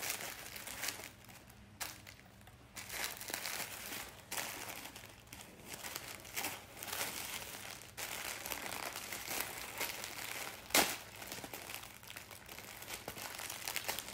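Paper wrapping and tissue paper crinkling and rustling as hands work a string-tied package loose, with one sharp click about three quarters of the way through.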